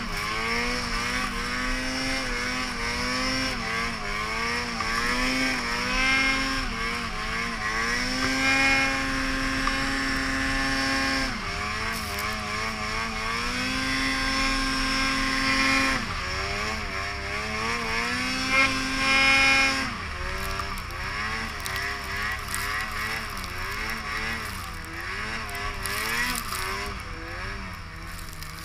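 Ski-Doo two-stroke snowmobile engine fitted with an RK Tek 860 big-bore kit, running well under throttle, its pitch rising and falling as the rider works the throttle. It holds high revs for a few seconds at a time and drops off sharply three times. Near the end the revs waver quickly at a lower, quieter level.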